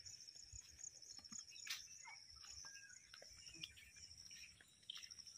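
Faint insect trill, high-pitched and steady, pulsing rapidly throughout, over scattered soft ticks and low thumps of someone walking.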